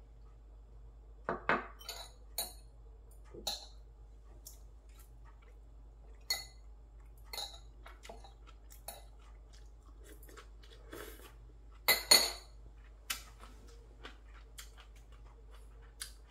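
Metal chopsticks and a small glass clinking against ceramic dishes on a wooden table: a scatter of short, sharp clinks with a brief ring, loudest about a second and a half in and again about twelve seconds in.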